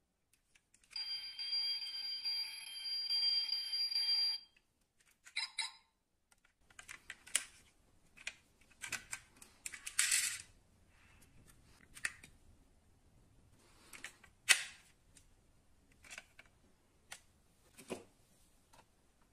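Electronic sound chip in a die-cast toy sports car playing a tinny, steady tone for about three seconds, then a short second burst. After that come scattered clicks and taps of the plastic-and-metal model being handled, with one sharper click near the middle.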